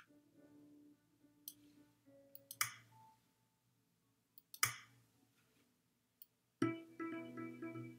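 Educational app sound effects during menu navigation: faint soft notes and light clicks, then two sharp clicks about two seconds apart. About two-thirds of the way in, a short jingle of quick pitched notes plays as the Scoreboard tool opens.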